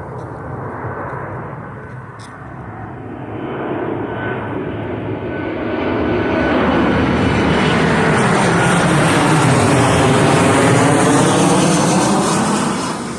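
Airplane passing low overhead: its engine noise swells over several seconds to a loud peak, with a sweeping, phasing rush, then begins to fade near the end.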